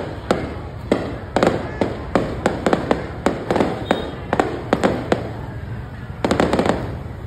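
Aerial firework shells bursting overhead: a rapid, irregular run of sharp bangs, several a second, with a dense cluster of bangs near the end.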